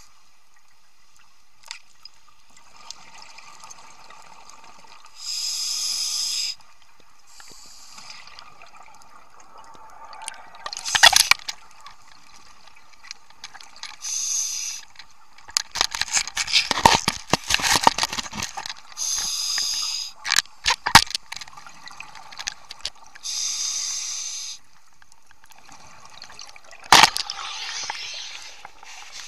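Scuba diver's regulator breathing underwater, a hissing, bubbling breath every few seconds, over a faint steady hum. In between come a clatter of sharp knocks and clicks, loudest about halfway through, as gear is handled.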